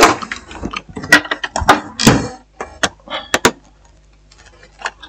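Irregular sharp clicks, knocks and brief scrapes of a manual screwdriver and tools being handled against a laptop's case, busiest in the first three and a half seconds, then sparser and fainter.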